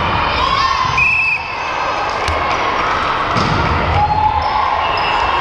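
Indoor volleyball rally with sneakers squeaking on the hardwood court, the ball being hit, and players calling out. It all echoes in the large gym.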